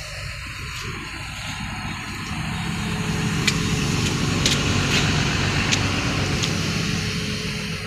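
Excavator diesel engine idling steadily, growing louder over the first few seconds and easing off near the end, with a few sharp clicks in the middle.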